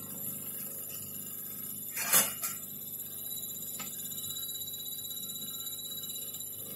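Steady electrical hum with a few faint high steady tones, broken about two seconds in by one short, loud, noisy sound, and a faint click near four seconds.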